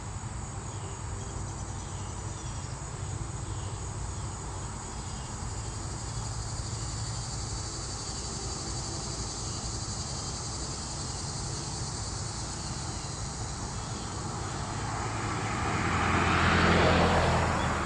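Steady chirring of insects over a low hum of distant traffic; about fifteen seconds in, a road vehicle passes, swelling up and then fading.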